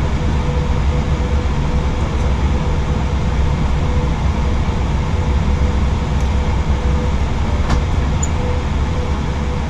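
Steady flight-deck background noise of an Airbus A320 before engine start: a low, even rumble of air-conditioning and ventilation with a faint steady hum above it.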